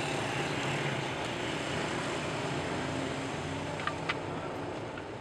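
A motor vehicle engine running steadily and slowly fading. About four seconds in come two light, sharp metal clicks from pliers working on the jack.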